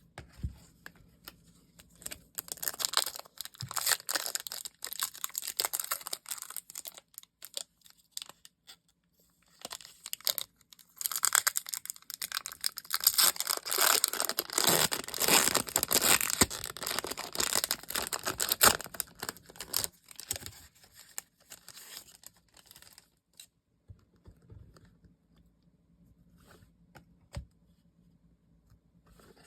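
Packaging being torn open and crinkled by hand, in two long stretches of rustling, the second louder and running from about ten to twenty seconds in, followed by a few light clicks of handling.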